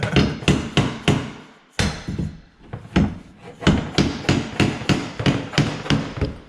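A hammer striking wood repeatedly, about three blows a second, with a short pause about two seconds in. This fits a piece of flooring being knocked into place.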